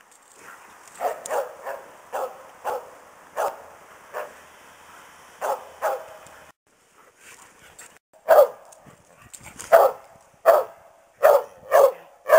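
Karelian Bear Dog barking repeatedly in short, sharp barks. The barks are softer at first, then louder and more regular from about eight seconds in. The owner takes the barking for the mother dog warning the others that their play is getting too rowdy.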